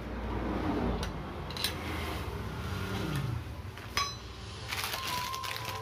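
Metal clinks of a steel ring spanner working the centre nut of a Piaggio Ape diesel clutch assembly, with a sharp ringing clink about four seconds in as the spanner is set down.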